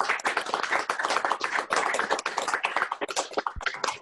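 A small group applauding: dense, overlapping hand claps that thin out near the end.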